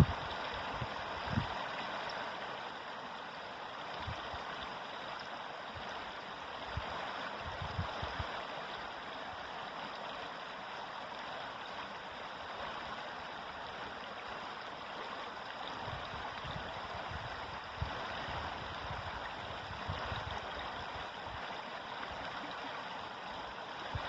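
River water flowing with a steady rushing sound, with a few soft low bumps now and then.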